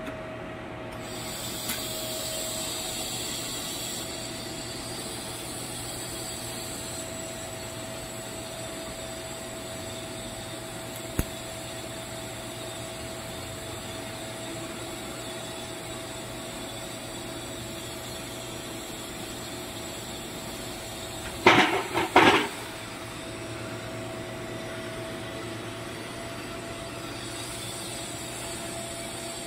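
TIG welding arc on a steel pipe-to-flange joint: a steady hiss over a steady hum, with the hiss coming in about a second in as the arc strikes. About two-thirds of the way through, a short burst of loud knocks.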